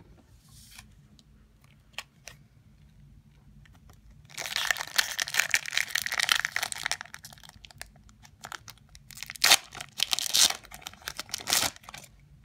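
A Pokémon booster pack's foil wrapper being torn open and crinkled by hand. It comes in two spells of tearing and crinkling, the first about four seconds in and the second near ten seconds, with a few faint clicks before them.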